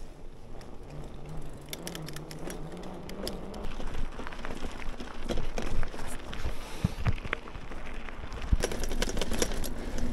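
Bicycle being ridden on a road: a steady low wind rumble on the microphone, with scattered clicks and rattles from the bike.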